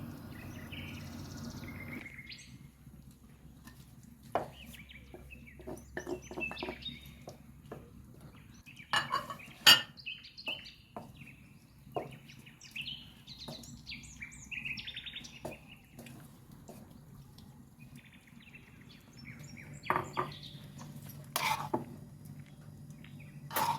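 Kitchen utensils and dishes clinking and knocking in scattered strokes, the loudest a sharp knock a little before ten seconds in, with short high chirps coming and going.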